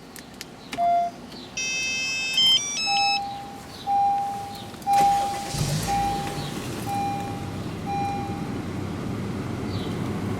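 Remote-start alarm system in a 2014 Honda CR-V being activated: a few button clicks and a short electronic melody, then a steady beep about once a second, six times. About halfway through, the engine cranks, starts and keeps running.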